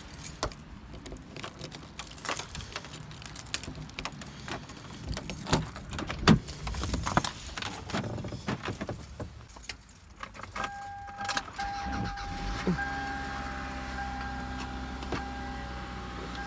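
Car keys jangling and clicking for the first ten seconds or so. About ten seconds in, a steady high electronic tone starts, with a few short breaks. A couple of seconds later the car's engine starts and runs at a steady idle.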